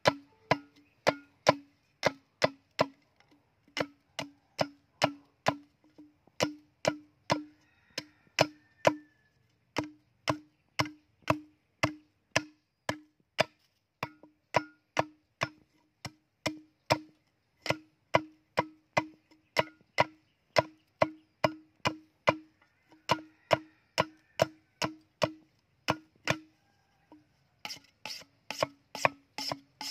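Machete blade chopping into a green bamboo culm in steady strokes, about two a second, each with a short hollow ring; the strokes quicken near the end as the cut works around the tube.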